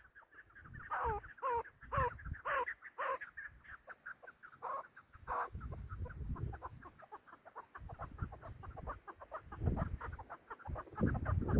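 Chukar partridges calling: a fast, steady run of short chuck notes, with five louder falling calls close together in the first few seconds. Low rumbling noise comes and goes underneath.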